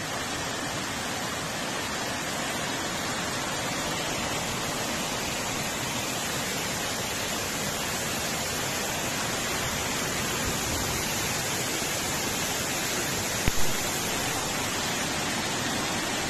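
A flash-flood torrent of muddy water rushing down a street: a steady, even rushing noise, with one short knock about thirteen seconds in.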